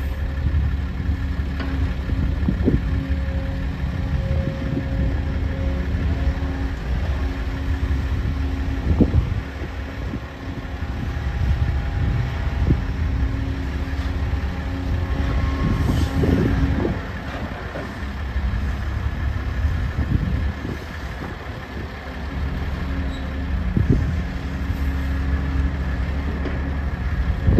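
Link-Belt 490 X4 crawler excavator's diesel engine running and working under varying load as it digs and swings, its note swelling and easing. Several knocks and clunks from the bucket scraping dirt and tipping its load into a side-dump trailer.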